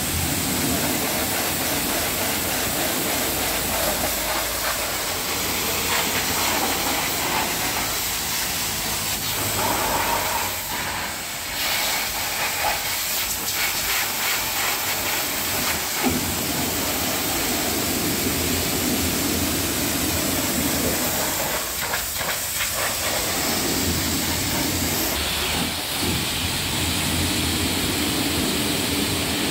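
High-pressure water jet from a pressure-washer lance hissing steadily as it blasts mud off a car's wheel arch and sill.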